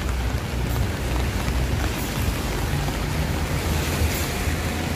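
Steady rain falling, an even hiss, over a continuous low rumble.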